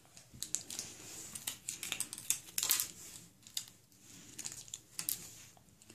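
Plastic packaging crinkling and crackling in irregular sharp bursts as a small blind-pack surprise ball is handled and opened.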